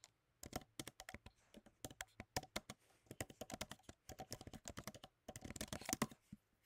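Typing on a computer keyboard: quick, irregular keystrokes, most tightly packed about five seconds in.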